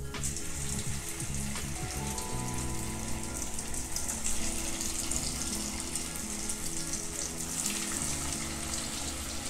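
Cornflake-coated chicken pieces going into hot oil and deep-frying, the oil sizzling and bubbling steadily around them.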